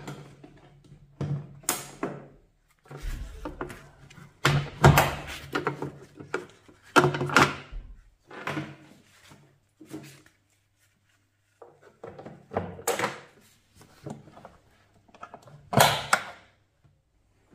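Handling noise from a plastic backpack sprayer: a series of knocks and thunks as the tank and its shoulder straps are moved and fitted. Near the end a metal strap hook clicks onto the bottom of the tank.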